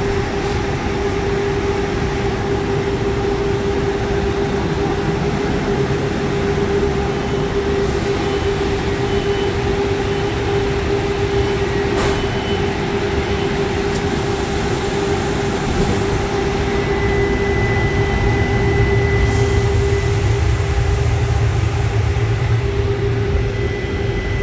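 Inside a Brookville Liberty streetcar: a steady electrical hum from the car's equipment over a low running rumble, with a single click about halfway through. The low rumble grows heavier in the last several seconds.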